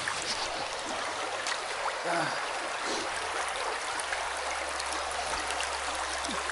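Shallow river current rippling and gurgling right at a microphone set at the water's surface, a steady rushing wash.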